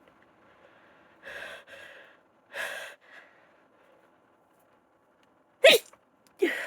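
A woman with a congested head cold taking three hitching, gasping breaths, then sneezing twice near the end: sharp, voiced sneezes with a falling pitch, the first the loudest.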